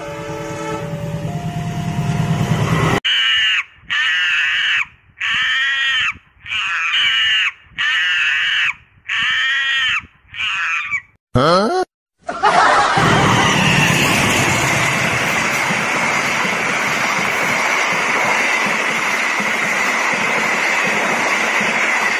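A train comes nearer, then about seven loud screeching calls of a comic monkey sound effect, each about a second long and arching in pitch. The last one is a quick rising glide. About halfway through, the steady noise of a passenger train passing close by takes over and runs on.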